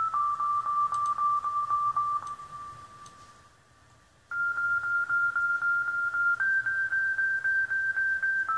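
A pure, beep-like synthesizer tone being auditioned for a beat, pulsing about four times a second on one note at a time. It fades away over about two seconds, stops, then returns about four seconds in on a higher note and steps up once more about six seconds in.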